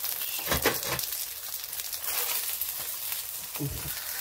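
Oil sizzling in a flat pan under a stuffed msemen flatbread as it fries, with a short low thump about half a second in.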